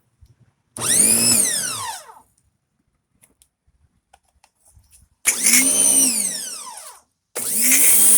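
Powermate 1800 PSI electric pressure washer's motor switched on in short bursts: twice it runs for a second or two and winds down with a falling whine, then near the end it starts a third time and keeps running steadily.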